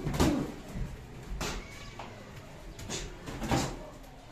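Padded strikes landing in kickboxing sparring: four dull thuds, the loudest right at the start, then about one and a half, three and three and a half seconds in.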